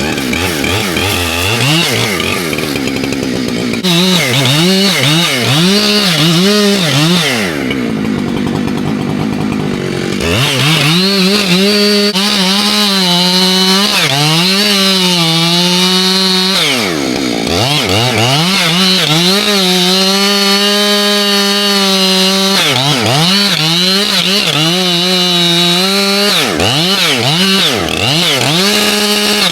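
Husqvarna 592 XP two-stroke chainsaw running at high revs while cutting into poplar, its engine note repeatedly dipping and swinging back up as the chain loads in the cut and frees again. It drops to lower revs for a few seconds around a quarter of the way in.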